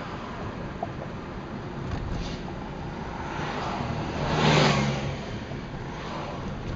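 Steady road and engine noise inside a moving car, with a city bus passing close alongside; its noise swells and fades, loudest about four and a half seconds in.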